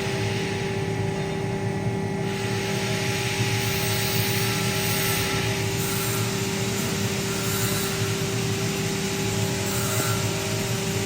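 Four-roll plate bending machine running steadily: a constant low hum with a steady mid-pitched whine from its drive, over a mechanical hiss.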